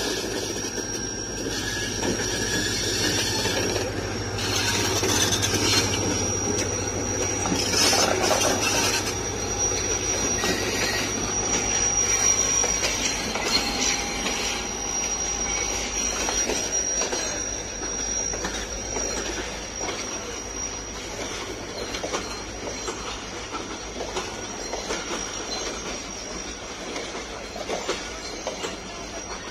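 Diesel-hauled passenger train rolling into a station: the locomotive's engine runs with a steady low hum while the coaches' wheels rumble and clatter over the rails, and a thin, steady, high-pitched wheel squeal rings through the middle.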